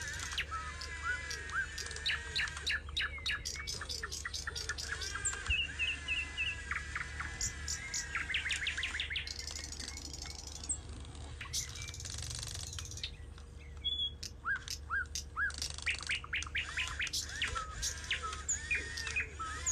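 Small birds chirping and trilling in quick runs of short repeated notes, several calls overlapping, over a steady low hum.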